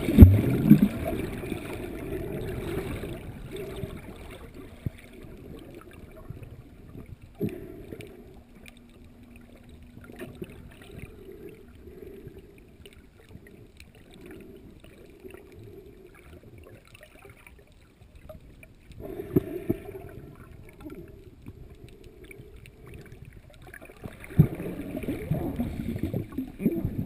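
Muffled rush and gurgle of water heard from a GoPro in its waterproof housing while it is underwater, with louder sloshing surges about a second in, around twenty seconds in, and again from about twenty-four seconds in.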